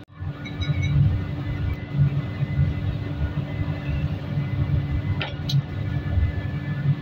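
Brass-melting pit furnace burning hard: a loud, uneven low rumble of the fire with a steady hum over it. A couple of faint clicks about five seconds in.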